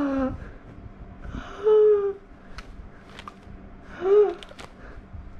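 Three short, high-pitched, wordless vocal cries, about two seconds apart, with a few light clicks and taps between them.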